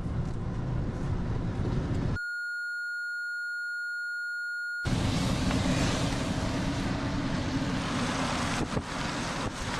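Road and wind noise inside a moving vehicle. About two seconds in, all of it is replaced by a steady, high electronic beep tone lasting about two and a half seconds, after which the road and wind noise comes back louder.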